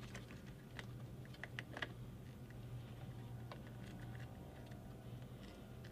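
Faint, scattered small clicks and light plastic rattles of wires and connectors being fed by hand through a car door's rubber wiring boot, over a steady low hum.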